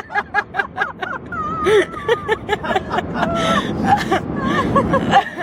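A girl with a bad case of hiccups making short vocal sounds in quick succession, then longer wavering whimpers, sounds she likens to a frog giving birth. A steady car-cabin road noise runs beneath.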